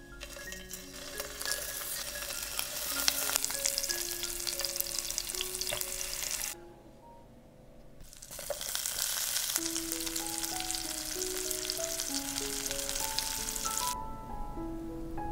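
Halloumi cheese cubes, later joined by halved cherry tomatoes, sizzling and crackling as they fry in hot olive oil. The sizzle stops abruptly for a second or so near the middle, then resumes and falls away near the end.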